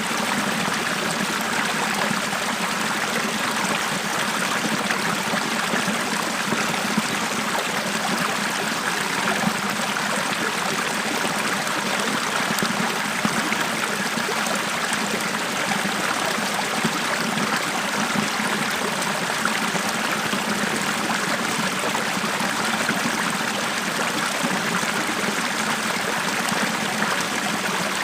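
Small forest stream flowing and trickling steadily over stones, a continuous even rush of water.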